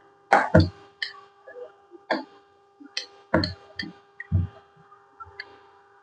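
Irregular knocks and clicks of kitchen utensils being handled and set down, several landing with a dull thud, over a faint steady hum.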